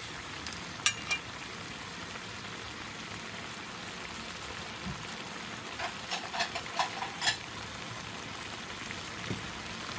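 Pork and greens sizzling in a wok with a steady hiss. A metal ladle clinks against the wok twice about a second in, then scrapes and clinks several times around six to seven seconds in.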